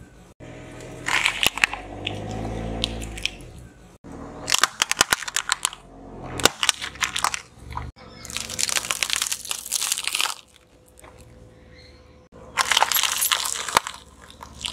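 A car tyre rolling over and crushing a series of objects in turn: bursts of crackling, snapping and crunching as wrapped boxes, woven baskets and small plastic cups give way under the wheel. There are four separate bouts, with short lulls between.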